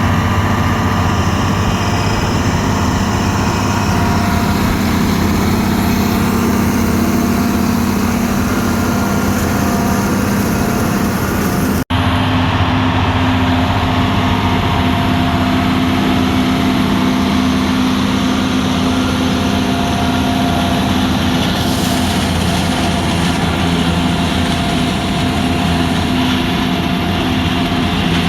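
Farm tractor engine running steadily and loudly, close up. An abrupt cut about 12 seconds in, after which the engine carries on at a slightly different pitch.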